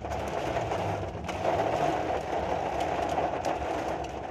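Rain mixed with hail drumming on a truck's roof and windshield, heard from inside the cab: a dense, steady patter with scattered sharper hits, over a low rumble.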